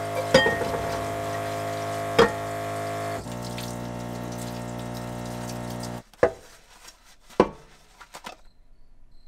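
Camper's electric water pump humming steadily while tap water runs into a stainless steel sink, with two sharp clanks of cookware against the sink. The hum changes about three seconds in and cuts off suddenly at about six seconds as the tap is shut. A couple of knocks from the pan follow.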